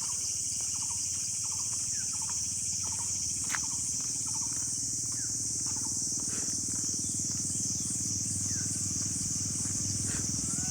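Steady high-pitched chorus of insects such as crickets over a low hum. Short chirping calls repeat about twice a second for the first three seconds, then thin out.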